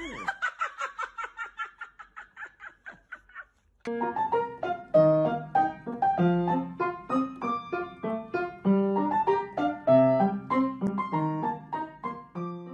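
Background piano music. First a quick repeated high note fades away, and after a short gap a piano melody plays in an even rhythm.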